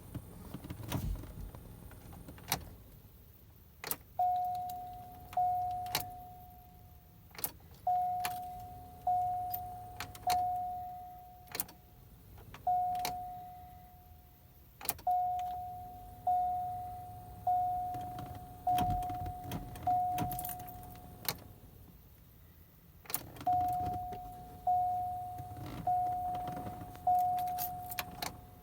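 Car warning chime dinging over and over in runs of several dings, with sharp clicks and keys jangling in between as the key is worked in a car that won't start; no engine cranking or running is heard.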